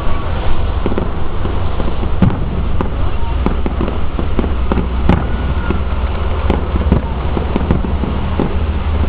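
Fireworks display heard from a distance: irregular sharp pops and bangs, about one every half second to second, over a steady low rumble.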